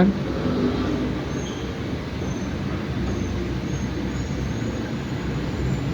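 Steady low hum and rumble of background noise, with no distinct events.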